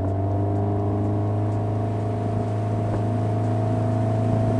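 The Sea Ray ski boat's 140-horsepower engine running hard at high, steady revs after the drag-race start, heard from on board. Water rushes past the hull beneath it.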